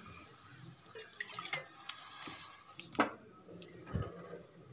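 Wooden spatula stirring wet sugar and water in a nonstick kadai: soft wet scraping with a few light knocks against the pan, the sharpest about three seconds in.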